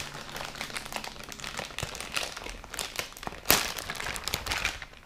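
A thin plastic packaging bag crinkling and rustling as the toy's plastic parts are handled inside it, with a sharper, louder crackle about three and a half seconds in.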